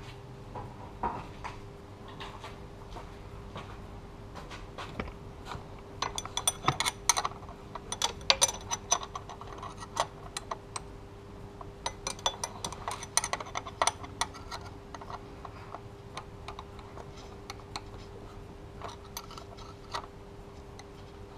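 Steel combination wrench clinking on a bolt head and the metal around it as the bolt is turned, a run of sharp metallic clicks and tinkles that is thickest from about six to fourteen seconds in, with a few more near the end.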